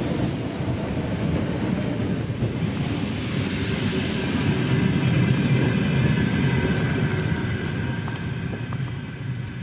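ED9MK electric multiple unit passing at speed, its wheels and bogies making a steady, heavy rumble on the rails. A thin high tone sounds over the first three seconds or so. The sound starts to fade near the end as the train draws away.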